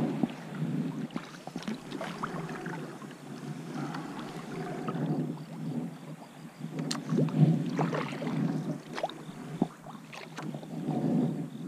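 Double-bladed paddle stroking through calm water beside an inflatable kayak: the splash and pull of the blade swell and fade every couple of seconds, with drips and small sharp clicks between strokes.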